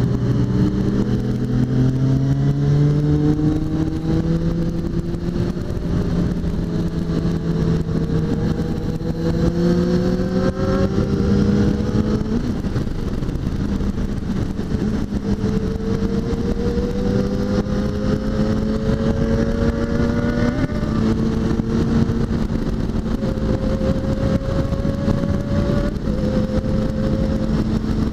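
Suzuki GSX650F's inline-four engine pulling at road speed, its revs climbing slowly and dropping back at a few gear changes, over steady wind rush.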